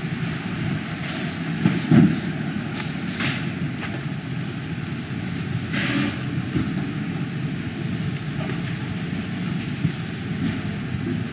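City street noise: a steady low rumble of vehicle engines and traffic, with a few brief knocks and clicks. The loudest is a thump about two seconds in, and there is a short hiss about six seconds in.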